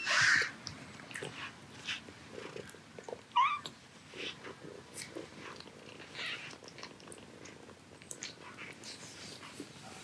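Korean shorthair kitten eating wet food from a dish, with many small wet smacking clicks, and one short high mew about three seconds in. A brief rustling burst comes right at the start.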